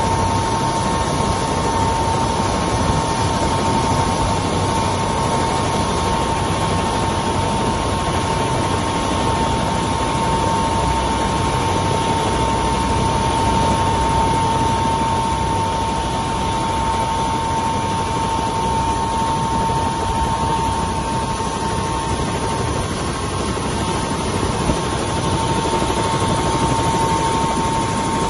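Helicopter turbine engine running at ground idle: a steady high whine over a constant rushing noise.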